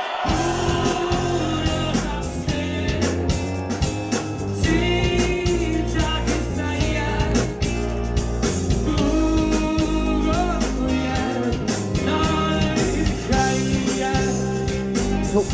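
Rock song with singing over bass guitar and drums, cutting in abruptly at the start.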